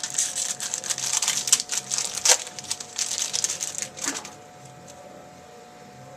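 Trading card packs and cards being handled, crinkling and rustling with many quick clicks for about four seconds, then only a few soft clicks.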